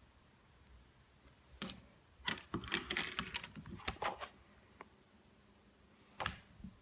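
A flexible plastic craft mat being handled and lifted off a tabletop: a cluster of light clicks and knocks in the middle, then one more knock near the end.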